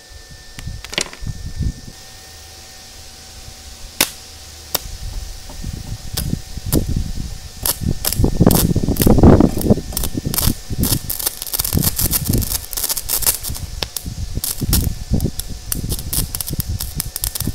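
Stick-welding arc run off car batteries: the welding rod crackles and pops against a steel bracket, with a few sharp snaps at first and then a dense, nearly continuous sputtering crackle from about eight seconds in, loudest around nine seconds.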